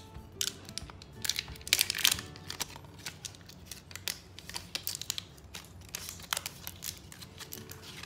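Thin plastic shrink-wrap being torn and peeled off a drink bottle, crinkling and crackling in short irregular bursts, loudest about two seconds in. Soft background music plays underneath.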